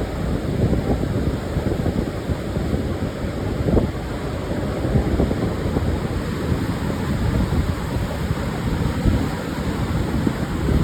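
Pacific surf breaking on a sandy beach, a steady low rush of wave noise, with wind buffeting the microphone.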